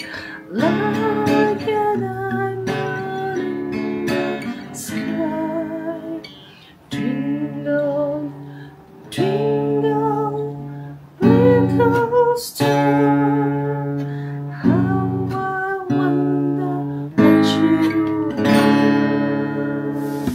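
Epiphone acoustic guitar strummed in changing chords, with a woman singing a melody along with it.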